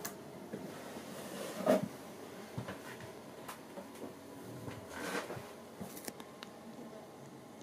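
Quiet room tone with scattered soft knocks and clicks, the loudest about two seconds in and again about five seconds in.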